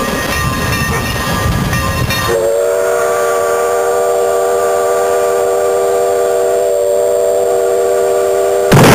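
Drum-backed music gives way, about two and a half seconds in, to a train whistle sounding a steady chord of several tones, held for about six seconds. Near the end a loud rush of noise cuts in abruptly.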